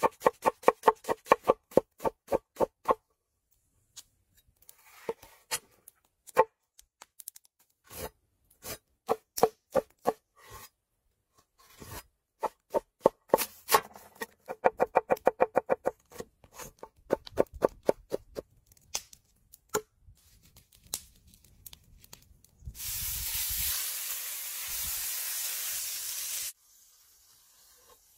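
A large knife chopping onion on a wooden cutting board: quick runs of ringing strokes, about five a second, with scattered single knocks between the runs. About 23 s in, a loud steady sizzle of food frying in a hot pan runs for some four seconds and cuts off suddenly.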